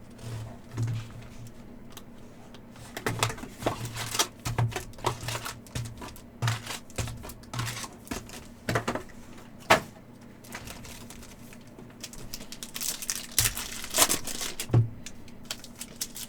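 Hockey card packs being opened and cards handled on a table: irregular light clicks and taps as cards are shuffled and set down, with foil wrapper crinkling in a denser stretch near the end.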